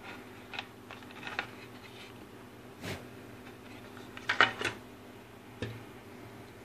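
Scattered light clicks and knocks of hard plastic as the opened housing of an Ltl Acorn 5210 trail camera is handled, loudest in a short clatter about four seconds in, over a faint steady hum.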